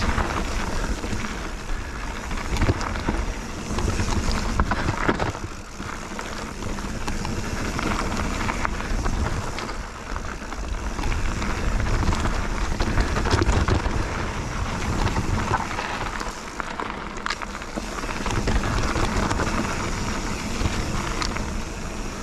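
Bird Aeris 145 mountain bike riding down a trail, heard from an on-board GoPro: a steady rush of tyre and wind noise buffeting the microphone, broken by frequent sharp clicks and knocks as the bike rattles over bumps.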